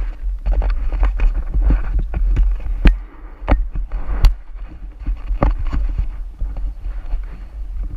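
Ride on an ATV: wind buffeting the microphone, with irregular sharp knocks and rattles.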